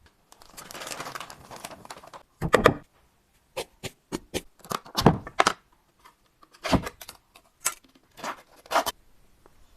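Kitchen handling sounds from food preparation: a rustling scrape, then a string of irregular sharp taps and thumps on a work surface.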